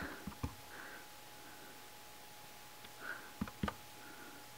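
A few soft taps of a rubber stamp on an ink pad and on card stock: two just after the start and two more about three and a half seconds in, with little else heard.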